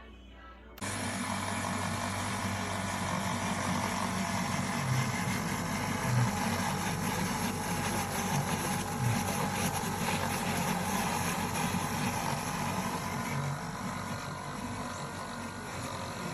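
Electric milk frother's whisk motor switching on a little under a second in and running with a steady whirring hum and hiss.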